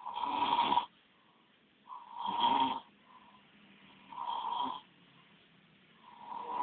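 A sleeping person snoring: four snores about two seconds apart, each just under a second long.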